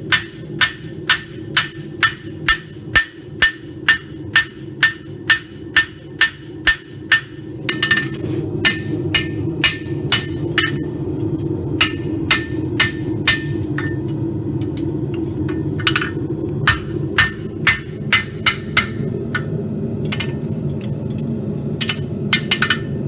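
Forging hammer striking a hot steel horseshoe on an anvil, drawing out a tab, with the anvil ringing after each blow. About three even blows a second at first; from about eight seconds in the blows come sparser and uneven, with pauses, over a louder steady low rushing noise.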